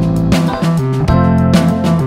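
Background music led by a plucked acoustic guitar, with a steady rhythm.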